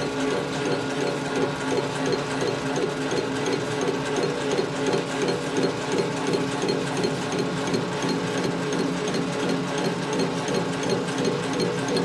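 Machine tool taking a boring cut in an aluminum caliper bracket: a steady motor hum with a regular light ticking, about three a second.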